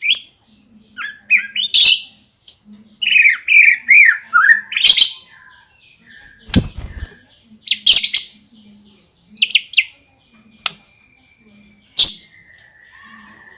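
White-rumped shama (murai batu) singing, with canary-style fill-in phrases: loud separate phrases of sharp chirps and quick gliding whistles. A short noisy thump comes about six and a half seconds in.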